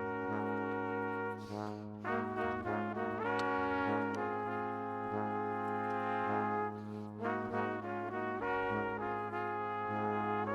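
Background music with brass instruments playing sustained chords over a steady bass line.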